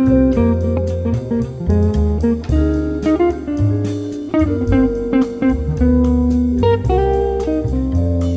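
Background music: plucked guitar over a held bass line, in a slow blues-like style.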